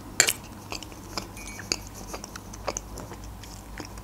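A metal fork clinks against a china plate twice just after the start. Quiet chewing and scattered small clicks follow.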